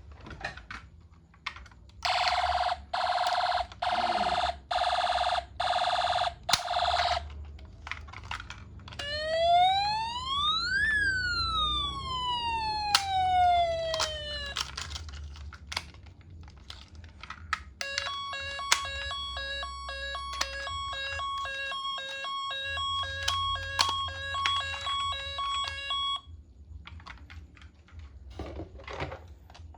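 Toy ambulance's electronic siren running through several patterns: six short beeping blasts about one a second, then a single wail rising and falling, then several seconds of fast, steady-pitched beeping. Clicks and a low rumble sound beneath.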